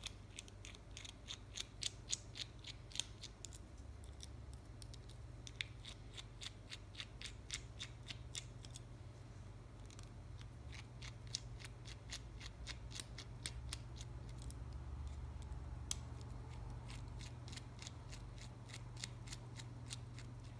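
Faint, rapid clicking of a small precision screwdriver turning tiny screws out of a nano quadcopter's plastic frame, in two runs with a lull around the middle. A steady low hum lies underneath.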